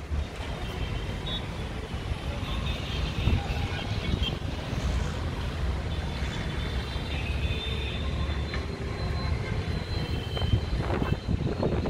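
City background noise: a steady low rumble of wind on the microphone mixed with distant road traffic, with faint high tones coming and going.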